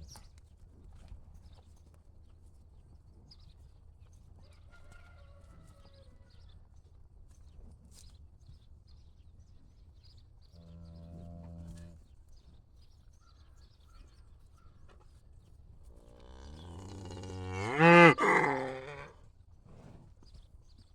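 Cattle mooing: a faint call about five seconds in, another around eleven seconds, and a loud, long moo near the end that rises and falls in pitch.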